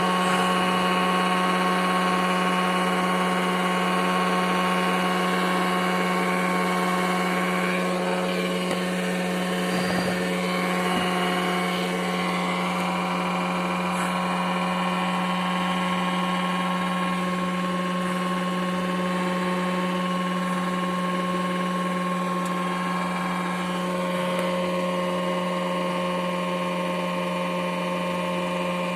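A Renault Twingo engine running steadily at idle, with an exhaust leak at the exhaust manifold gasket and the donut gasket.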